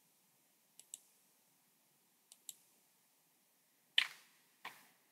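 Computer mouse button clicks: two faint double clicks in the first half, then two louder, sharper clicks about four seconds in.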